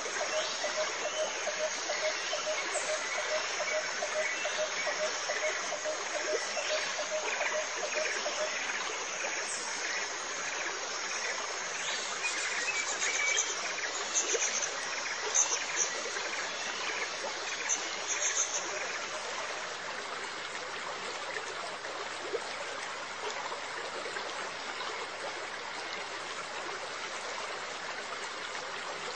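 Steady running, trickling water. Faint high chirps come and go about halfway through.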